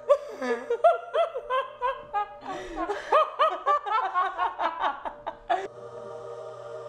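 Women laughing hard in quick repeated 'ha' pulses, in two bouts with a short break about two seconds in, over a steady ambient music drone. The laughter stops about five and a half seconds in, leaving only the drone.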